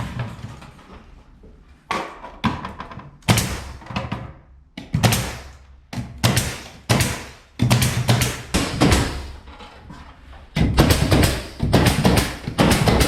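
A series of sharp knocks and thuds from carpentry work on wooden panels, each with a short ringing tail. The knocks come about once a second at first and get faster and denser near the end.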